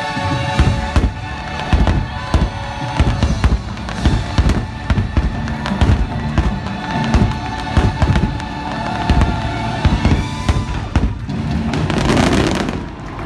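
Fireworks bursting in quick succession, a steady run of sharp booms and bangs over music playing through the show's speakers. A little before the end, a louder rush of crackling as a volley of sparkling shells goes up.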